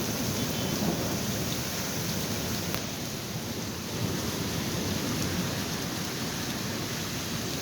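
Heavy rain falling steadily in a storm, a dense, even downpour with a little easing about halfway through.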